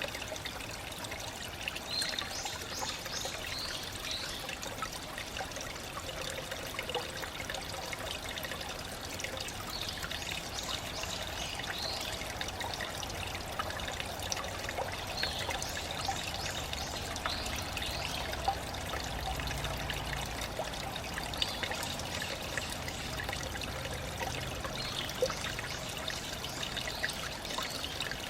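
Small mountain stream trickling and splashing over rocks, a steady running-water sound, with a few brief high chirps now and then.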